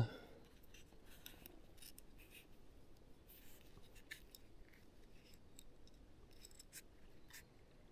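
Faint, scattered small clicks and rustles of fishing tackle being handled as a method-feeder mould is picked up.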